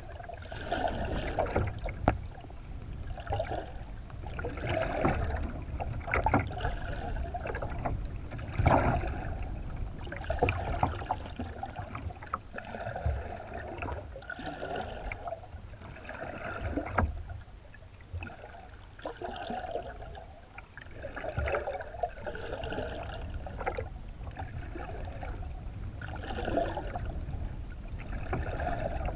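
Water rushing past a GoPro in its underwater housing mounted beneath a moving kayak, swelling in rhythm with the paddle strokes about every one and a half seconds. A few sharp knocks stand out, about two seconds in and near nine seconds.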